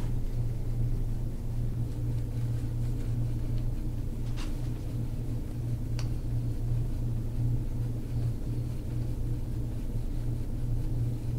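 Steady low hum with a slight waver, with two faint clicks about four and a half and six seconds in.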